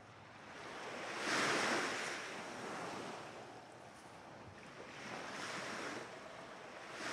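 Small sea waves washing in, a rush of water that swells and eases: a strong surge about a second in, a weaker one around five seconds, and another at the end.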